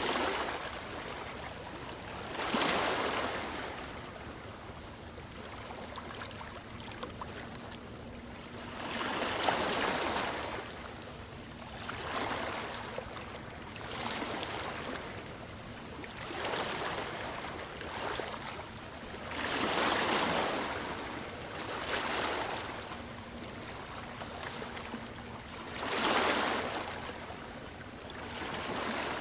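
Ocean waves breaking and washing up the shore, the surf swelling and fading about every two to six seconds.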